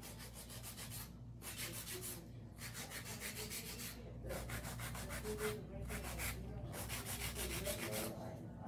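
Hand nail file rasping across acrylic nails in quick back-and-forth strokes, shaping them. The filing comes in runs of about a second with short pauses between.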